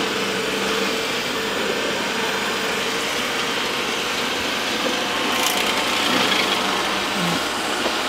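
Roborock S6 robot vacuum cleaning a hardwood floor, its motor running with a steady, even hum at about as loud as it gets, which is not too loud.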